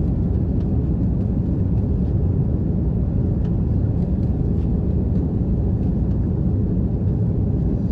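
Steady low rumble inside the cabin of an Airbus A330-300 as it taxis or rolls for takeoff, with a few faint rattles.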